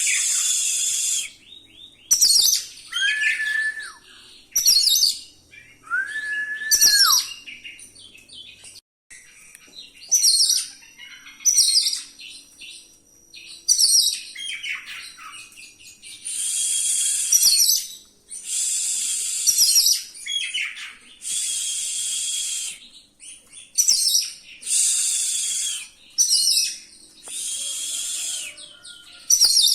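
Oriental magpie-robin (kacer) singing a rolling song full of varied fill-in phrases: bursts of high, rapid notes every second or two. Two long held whistles that drop at the end come in the first seven seconds, and the phrases grow longer and denser after about the halfway mark.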